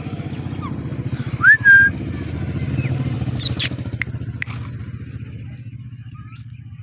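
Indian ringneck parrot giving a short rising whistle that levels off, about a second and a half in, then a few sharp chirps a couple of seconds later. Underneath, a low pulsing engine rumble of a passing motor vehicle builds and then fades.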